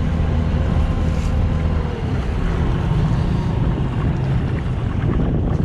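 Petrol outboard motor on a small boat running steadily; its pitch drops slightly about two seconds in, as if eased off. Wind rushes over the microphone.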